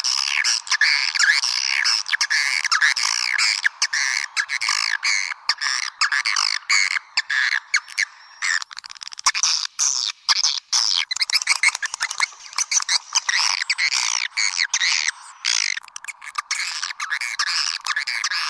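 Swiftlet lure call: a dense chorus of high, fast twittering chirps from edible-nest swiftlets, broken by many short gaps in its second half. It is the sound played at a swiftlet house to call the birds in.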